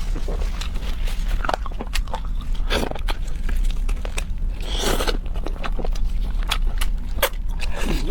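Close-miked eating: a person biting and chewing, with many small wet mouth clicks and a longer crunching bite about five seconds in.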